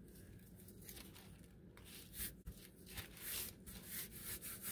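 Hands rubbing a thin paper napkin flat onto a glued paper page: soft papery swishing strokes, faint at first, then a quick run of them from about two seconds in.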